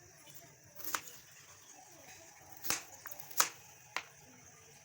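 Kitchen knife cutting beetroot into small pieces on a cutting board: four separate sharp chops at uneven intervals.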